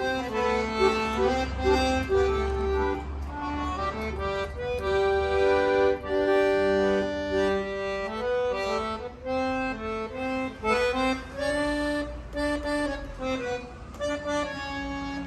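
Accordion played live: a melody of held and stepping notes over a steady bass.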